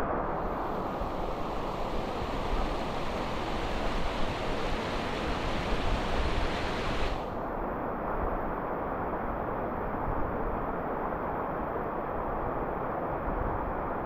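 Steady rush of flowing mountain river water. About halfway through it turns duller as the higher hiss drops away.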